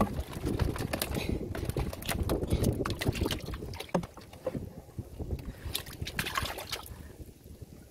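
Irregular clicks, creaks and knocks of a large woven bamboo shrimp trap as it is handled and its lid worked at against the wooden boat, over a steady low rumble.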